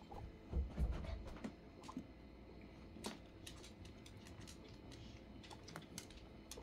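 Guinea pigs moving about a cage: scattered light clicks and taps of claws on a plastic igloo hide, with a few dull bumps about half a second to a second in.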